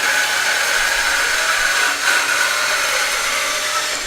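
Kalamazoo H350M horizontal metal-cutting bandsaw running in a cut as its head feeds down, a steady hiss with a high whine.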